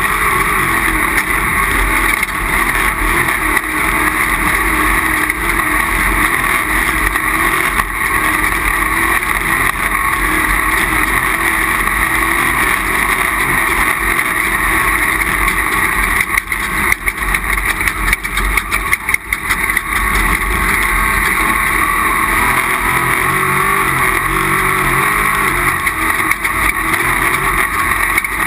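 Off-road race vehicle's engine running hard and continuously, its pitch stepping up and down with throttle and gear changes. Around two-thirds of the way through there is a patch of knocks and rattles with brief drops in engine sound.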